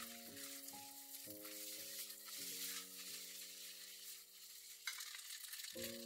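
Vegetable fried rice sizzling in a nonstick wok on a gas burner, with small clicks from stirring. Soft background music with sustained, changing notes plays underneath.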